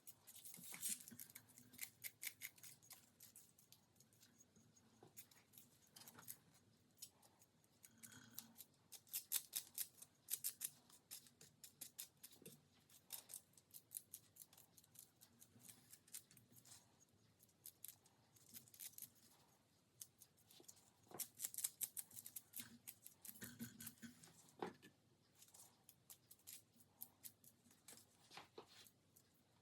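Thin gold foil sheets being cut and handled by hand: runs of quick, crisp snips and crackles in several bursts, the busiest about a second in, around ten seconds in and around twenty-two seconds in.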